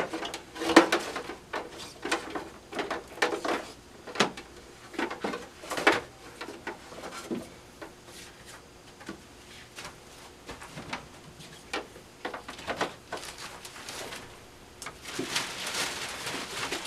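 Handling noise as a cable and machine parts are worked by hand: irregular clicks and knocks, thick at first and then sparser, with a stretch of rustling near the end.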